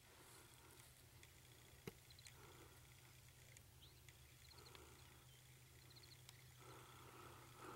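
Near silence outdoors, with faint small bird chirps in quick little runs a few times and a single soft click about two seconds in.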